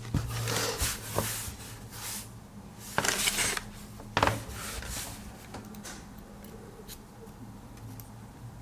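Handling noise from a sleeved USB cable being handled: a few short rustles and a sharper knock in the first half, then quieter, over a low steady hum.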